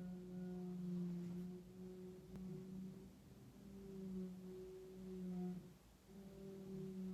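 A faint, low droning hum in the walls with a higher overtone. It wavers slightly in pitch, swells and fades every second or two, and breaks off briefly a few times.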